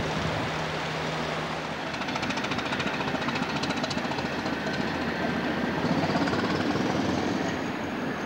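Northern Ireland Railways diesel railcar approaching, its engine running under a steady rushing noise. A rapid ticking rattle comes in for about two seconds, and a high whine rises in pitch in the second half.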